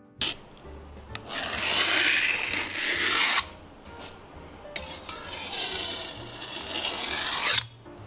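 Two long stretches of rough rubbing, scraping noise, each about three seconds, over faint background music.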